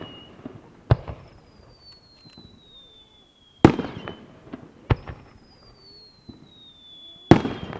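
Aerial fireworks: whistling shells climb with a long whistle that falls in pitch, each ending in a loud bang as it bursts, the two loudest bangs a little after halfway and near the end, with smaller pops between.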